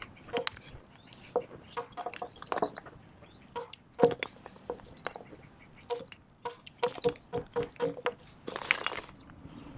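A small hatchet splitting kindling on a log: a string of sharp wooden knocks, irregular at first and then several quick taps a second towards the end, with a longer, rougher crunch of wood near the end.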